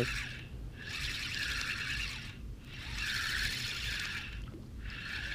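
Spinning reel on a feeder rod being cranked in spells of about a second and a half with short pauses between them, winding in a hooked fish.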